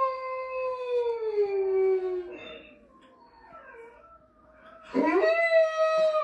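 A dog howling: one long howl that slides down in pitch and fades out about two seconds in, then, after a short lull, a second howl that rises steeply from low and holds near the end.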